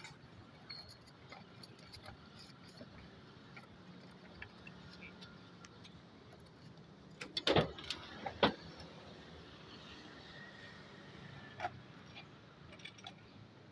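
Scattered short clicks and knocks over a steady low hum, with a louder cluster of knocks about halfway through.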